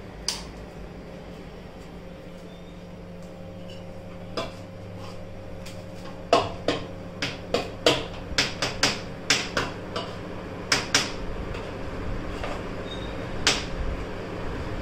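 Metal spoon clinking and scraping against a steel bowl while a crumbly churma mixture is stirred, in irregular strikes, several a second from about six seconds in. A light switch click near the start, with an electric fan humming steadily underneath.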